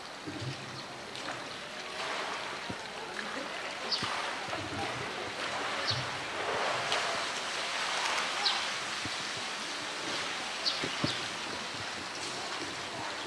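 Water splashing and running around a polar bear in its pool, a steady wash of sound, with a few short high chirps.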